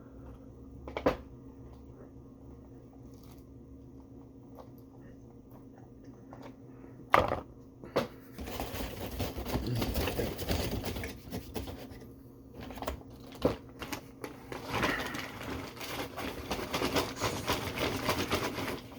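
Things being handled on a table after a meal: a few sharp knocks about a second in and around seven and eight seconds in, then long stretches of rustling and scraping, over a steady low hum.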